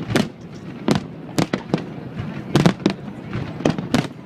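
Fireworks bursting overhead: a quick, irregular series of sharp bangs, about eight in four seconds.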